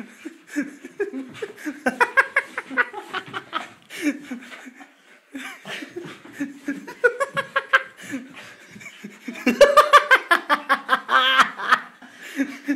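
Hard human laughter in repeated bouts of rapid pulses, loudest about ten seconds in.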